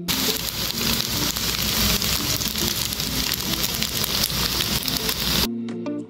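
A loud, even hiss over faint background music; it starts abruptly and cuts off suddenly about five and a half seconds in.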